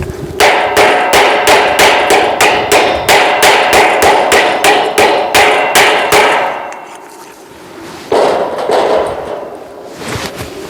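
A hammer striking metal in quick repeated blows, about three a second, each blow ringing. The blows stop a little past halfway, and one more ringing strike follows about two seconds later.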